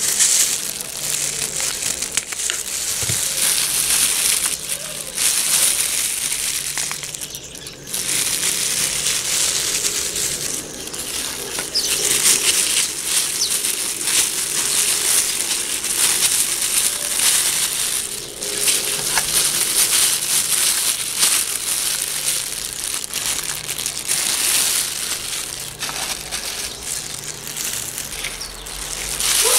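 Thin plastic gloves and a plastic bag crinkling and rustling as hands squeeze and rub a boiled egg inside to spread the dye, with a few short pauses.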